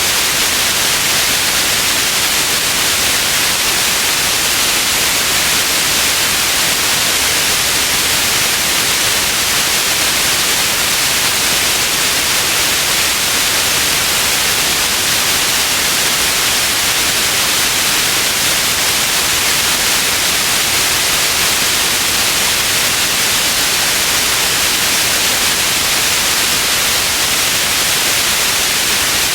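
Steady, unchanging white noise: an even hiss, brightest in the upper register, with no events or changes.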